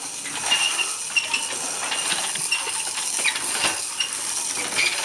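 Small vacuum cleaner running steadily, with light clinking and rattling over its hiss.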